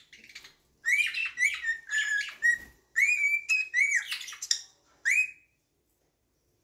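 A bird calling in a rapid run of short chirps and whistled notes, most of them sliding up and then holding. It starts about a second in and stops about a second before the end.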